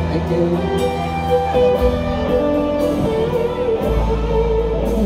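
Live rock band playing an instrumental passage: a sustained, wavering electric-guitar melody over bass and drums, heard from the audience seats of a concert hall.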